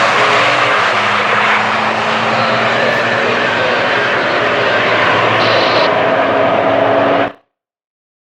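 Drag-race car engine at full throttle: a loud, steady engine noise with faint tones slowly rising in pitch. It cuts off suddenly about seven seconds in.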